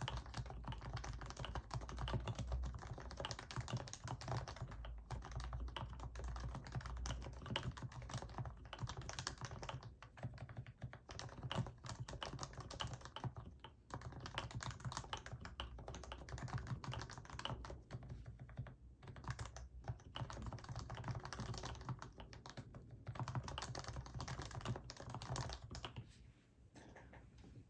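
Typing on a Happy Hacking Keyboard Professional BT with fully lubed Topre switches: a fast, continuous run of keystrokes with a few short pauses, thinning out near the end.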